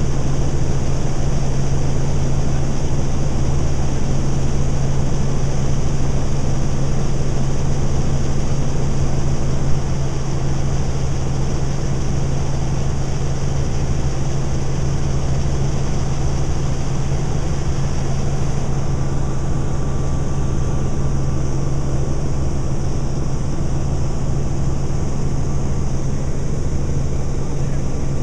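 Helicopter in flight heard from aboard: a steady, loud drone of rotor and engine with a strong low hum. A single brief click about ten seconds in.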